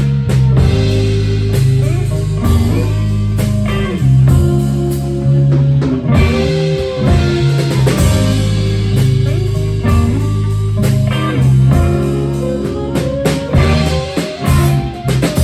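Live band playing an instrumental passage with no singing: electric guitar and bass over a drum kit, with a lead line whose notes bend up and down.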